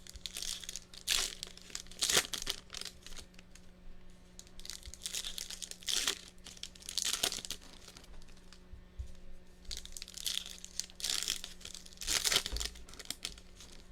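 Plastic wrapping of trading-card packs being crinkled and torn open by hand, in a string of irregular rustling bursts.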